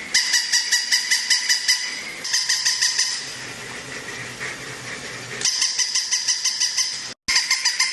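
A dog's rapid, high-pitched yipping in quick runs of about seven yips a second, broken by short pauses and a brief dropout near the end.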